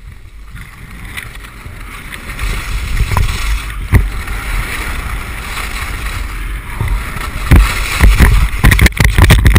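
Wind rushing over an action camera's microphone together with skis scraping over packed snow during a fast downhill ski run. The noise grows louder as speed builds, with heavy gusty buffeting near the end.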